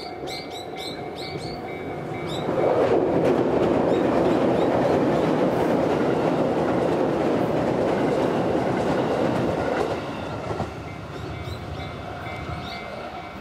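Level-crossing warning bell ringing in a quick steady rhythm of about three strikes a second. A JR Yamatoji Line electric train passes over the crossing from about two and a half seconds in, its wheels rumbling and clattering loudly for about seven seconds. The bell is heard again once the train has gone.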